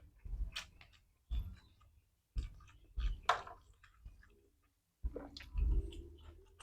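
Close-miked eating: chewing and wet mouth clicks with soft knocks, in irregular short bursts, as rice and fried chicken are eaten by hand.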